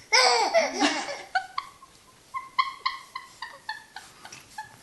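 Baby laughing: a loud burst of laughter in the first second, then a string of short, high-pitched squealing giggles.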